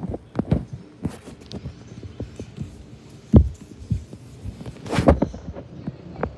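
Irregular dull thumps and knocks with brief rustling, the loudest about three and a half seconds in and a cluster near the end.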